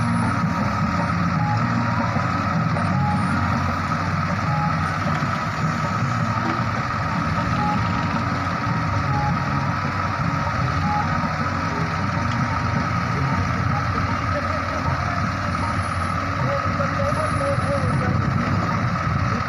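Ace AX130 backhoe loader's diesel engine running steadily under working load, with a steady high whine held over it.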